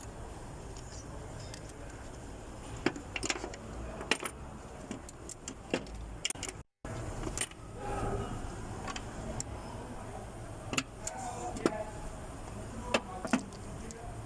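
Irregular metallic clinks and clicks of hand tools and engine parts being handled during ignition coil and spark plug work, over a steady low hum.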